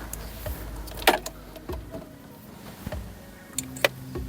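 Scattered clicks and light knocks of equipment being handled, the sharpest about a second in and two more near the end. A low steady hum starts near the end.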